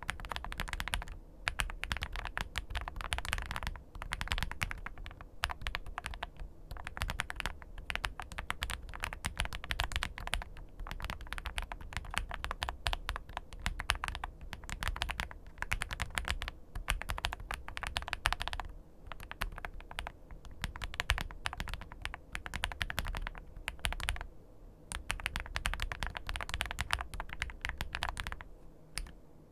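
Typing on a WEIKAV RECORD Alice V2 mechanical keyboard with HMX Violet switches and XVX double-shot PBT keycaps: fast, continuous keystroke clacks with a few brief pauses.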